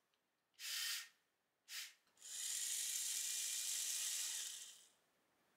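Compressed air hissing from a Lego Technic pneumatic system in three bursts: two short ones, then a longer, steady hiss of about two and a half seconds that stops abruptly.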